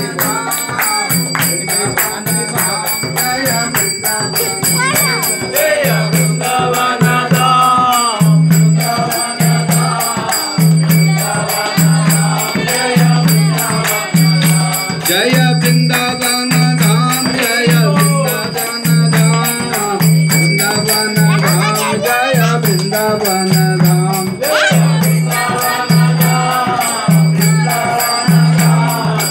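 Devotional kirtan: a man sings a chant through a microphone and loudspeaker, over a low beat about once a second with hand-clapping and rapid high jingling.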